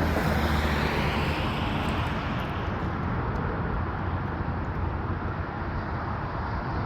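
Boeing 787 jet engines on takeoff thrust: a steady roar that eases slightly as the airliner climbs away.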